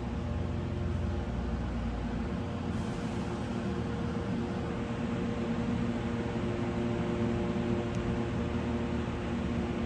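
Steady mechanical hum with a few held tones, and a low rumble underneath that fades out about two and a half seconds in.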